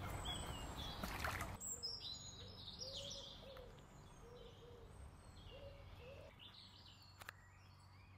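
A hooked fish splashing at the water's surface for about a second and a half, then faint birdsong with a few short, low calls.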